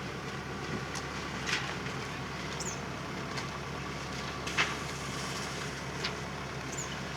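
Steady low drone of a slow-moving corn harvest rig ('the mule') run by a small four-cylinder engine, with a few short sharp clatters over it.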